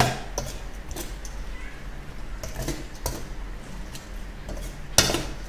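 A metal spoon stirring sliced, boiled bamboo shoots in a stainless steel mixing bowl, mixing in the seasonings. The spoon clinks and scrapes against the bowl at irregular moments, with a loud clink at the start and the loudest about five seconds in.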